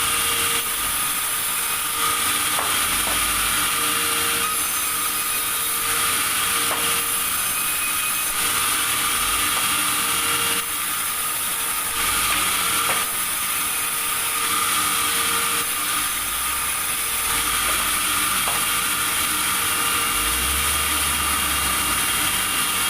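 Sawmill machinery running: a steady mechanical noise with a hum that comes and goes and a few sharp clicks.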